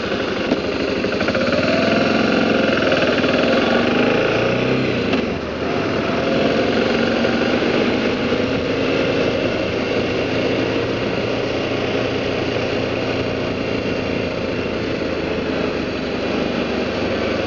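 A BMW G650GS's single-cylinder engine running as the motorcycle rides along a street. The engine note shifts in pitch over the first few seconds and dips briefly about five seconds in, then holds steady.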